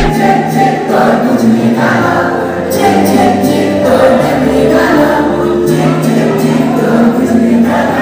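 Music: a song with singing voices holding long notes.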